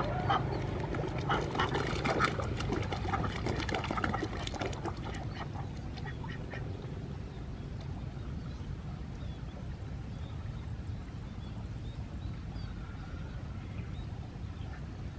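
A flock of domestic ducks quacking, many calls overlapping for the first five or six seconds, then thinning to a few faint, scattered quacks over a steady low background rumble.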